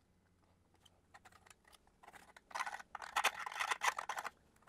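A hand-held marking tool scratching on mild steel plate as it is traced around a 3D-printed template, in a cluster of quick rough strokes from about two seconds in. A few faint light clicks come before it.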